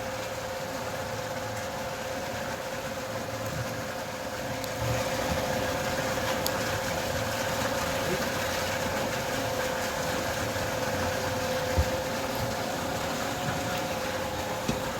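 A motor runs with a steady whining hum over an even rushing hiss, growing louder about five seconds in.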